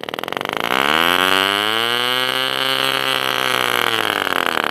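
Tiny two-stroke nitro glow engine being spun over with a drill starter and buzzing, its pitch rising over the first couple of seconds, holding, then dropping and breaking into fast pulsing near the end.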